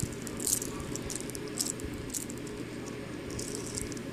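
Scattered light clicks and rattles from a small object being handled, several times, over a steady low hum.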